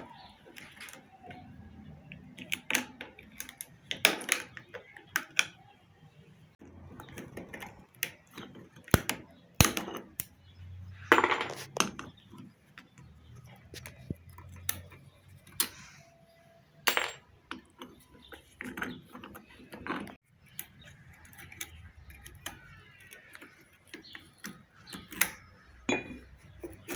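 Irregular metallic taps and clinks of a screwdriver and hand tools against a centrifugal water pump's metal parts, a few sharper strikes among lighter handling clicks, as the pump's water seal is chipped out.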